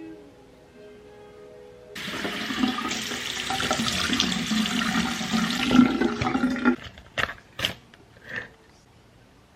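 Water running hard, starting suddenly about two seconds in and cut off sharply about five seconds later, then three short clicks or knocks.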